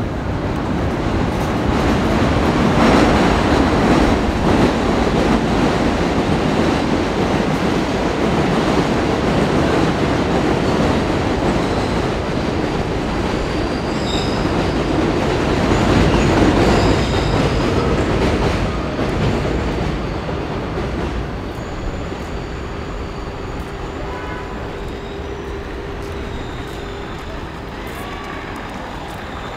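Elevated subway train on the 7 line passing overhead on the el: a loud rumble and rail clatter that swells twice, then dies away over the last ten seconds, with thin high wheel squeals.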